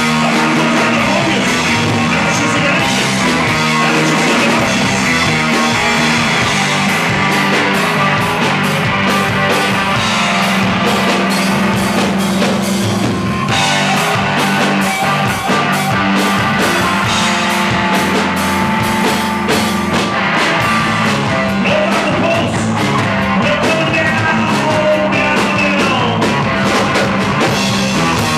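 Live rock band playing: electric guitar, bass guitar and drum kit, with a male voice singing.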